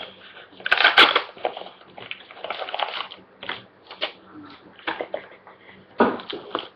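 Hockey trading cards and their packaging being handled: a loud crinkling rustle about a second in, then lighter rustles and scattered taps and clicks as cards are shuffled.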